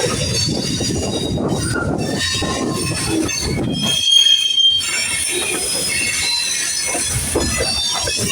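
Freight cars of a long manifest train rolling past, their steel wheels squealing against the rail over a steady low rumble. The rumble drops out briefly about four seconds in.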